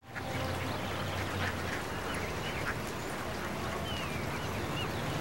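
Outdoor pond ambience: a steady low hum with scattered short bird chirps and duck quacks.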